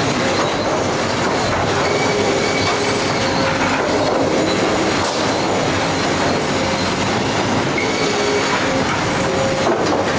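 Sawmill production-line machinery running: chain conveyors, rollers and saws make a steady, loud mechanical clatter with a few faint steady whines threaded through it.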